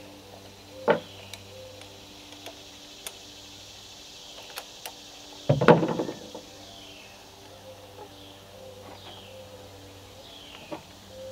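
Hand-tool work on a wooden log: a few sharp knocks, a small one about a second in and a louder short cluster about halfway through, with fainter taps between. Birds chirp throughout, short falling calls about once a second.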